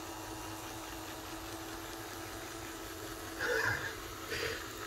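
Small electric motor and drive of an N scale GP38-2 model diesel locomotive running under heavy load up a grade, a low steady hum, its wheels slipping but still pulling. Two brief louder sounds come a little past three and four seconds in.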